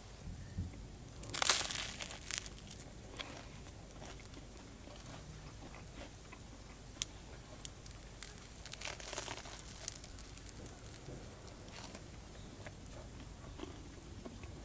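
Biting into crusty bread topped with cheese melted over a campfire, then chewing. There is a loud crunchy bite about a second and a half in and another around nine seconds, with small crackles between.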